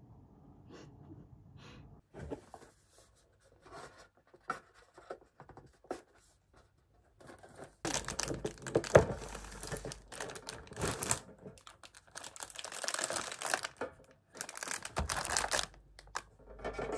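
Close-up rustling and tearing of something handled by hand, with scattered clicks and taps; it becomes louder and denser about eight seconds in.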